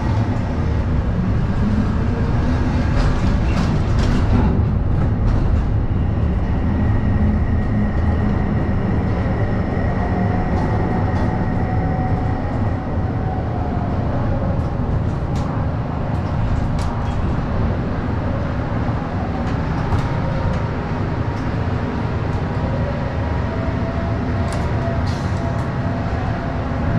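A Panamax ship-to-shore container crane running, heard from the operator's cab: a steady low mechanical rumble from the crane's drives as a container is handled, with a faint whine that rises and falls in pitch and a few light clicks.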